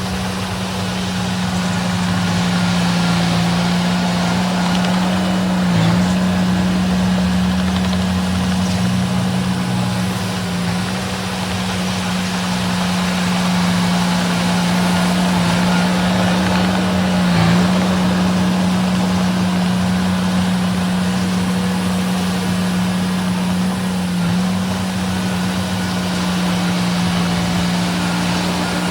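Small bulldozer's diesel engine running steadily under working load. Its note dips briefly a couple of times.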